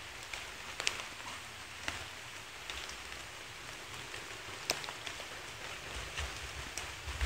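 Steady outdoor hiss with scattered small ticks and taps. There is no barking or growling from the playing dogs.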